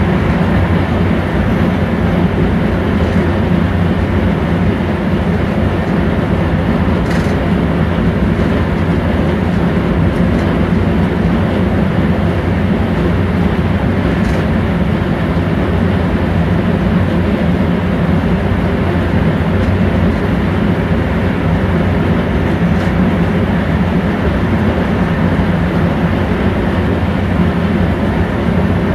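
Steady rolling noise heard inside an InterCity passenger coach running at speed: a constant rumble of wheels on rail with a low hum, and an occasional faint tick.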